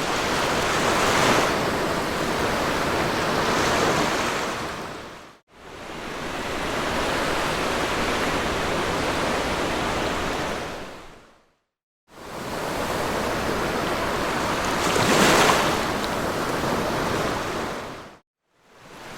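Sea waves washing onto a beach in a steady rush of surf, swelling with a breaking wave about a second in and again about two-thirds of the way through. The rush fades out to brief silence three times.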